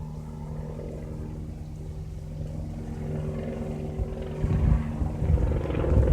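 Helicopter flying overhead: a steady engine and rotor hum that grows louder and choppier about four seconds in.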